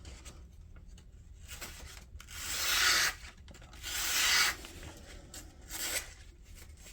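Sheepsfoot knife blade slicing through paper to test its factory edge, two cuts: a longer one about two seconds in and a shorter one about a second later. The edge proves very sharp.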